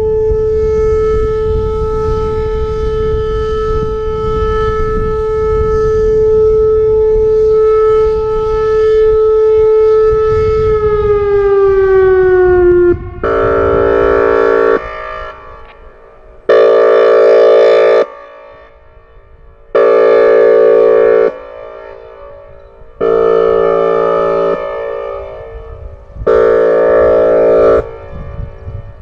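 Whelen Vortex electronic tornado siren holding its steady Alert tone, which glides down in pitch about ten seconds in. About thirteen seconds in it switches to the Air Horn signal: loud honking blasts of about a second and a half, repeating roughly every three seconds.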